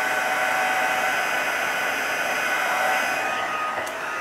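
Embossing heat tool running, a steady fan whir with held whining tones, as it melts heat and stick powder under silver glitter. A little past three seconds in, the sound shifts and softens slightly but keeps running.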